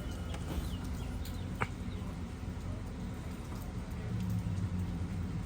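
Low steady hum of an idling car heard from inside the cabin, with a single sharp click about a second and a half in.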